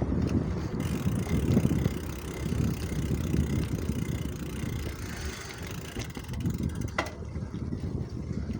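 Riding noise from a bicycle: wind buffeting the microphone and a steady rumble from the tyres on the road, with one sharp click about seven seconds in.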